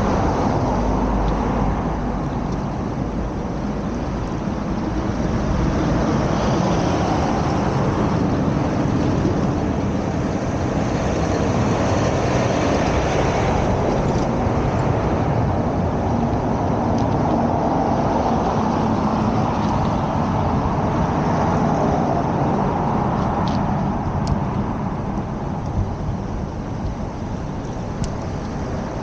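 Road traffic: a continuous rush of passing vehicles that rises and falls as they go by, with a heavy low rumble in the first couple of seconds.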